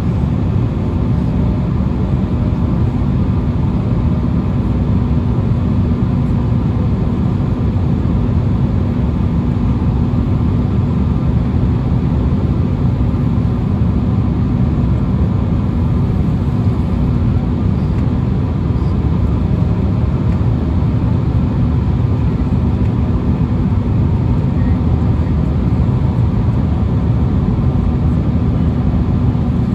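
Steady cabin noise inside an Embraer E175 on its instrument approach: rushing air and the hum of its GE CF34-8E turbofan engines, with a constant low drone throughout.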